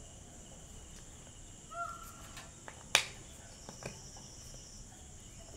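Quiet room with a steady, faint, high-pitched chirring in the background. There is a short tone a little before two seconds in, then one sharp tap about three seconds in.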